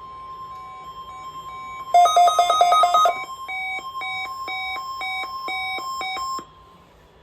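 NOAA Weather Radio's steady 1050 Hz warning alarm tone for the weekly test, with a weather alert receiver's alarm beeping over it. There is a quick burst of rapid beeps about two seconds in, then slower beeps about twice a second, and everything cuts off about six and a half seconds in.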